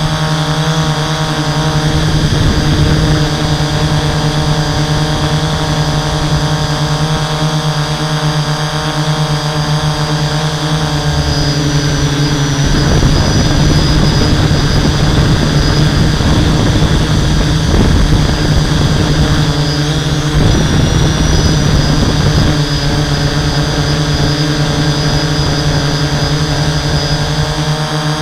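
Hexacopter's six brushless motors and 11-inch propellers droning steadily in flight, heard from the camera mounted on the craft. A little before halfway a rougher rushing noise joins the drone for about ten seconds, then drops away.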